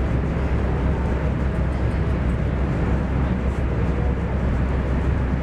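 Steady running noise inside a moving X10 electric multiple unit: a constant low rumble of wheels on rail, with a hiss over it, holding the same level throughout.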